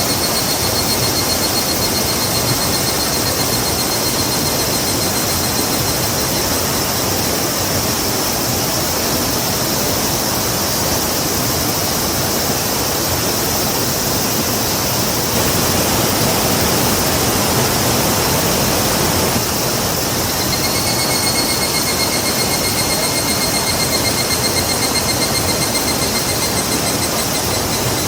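Rushing river water, a loud, steady wash of noise. A high, even, rapidly pulsing trill comes in twice, for about six seconds at the start and again about two-thirds of the way through.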